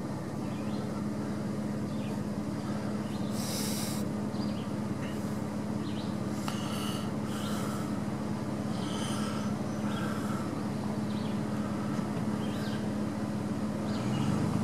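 Pickup truck engine idling with a steady hum; near the end its pitch begins to rise as it revs.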